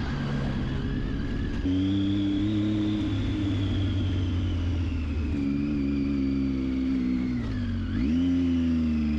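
Triumph Tiger 800XC's three-cylinder engine running under way with a steady note. The note jumps up about two seconds in, then dips briefly and comes back up near the end.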